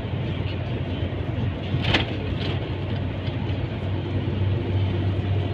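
Steady drone of a MAN diesel truck cruising on the highway, heard inside the cab: a low engine hum under tyre and road noise. A brief knock about two seconds in.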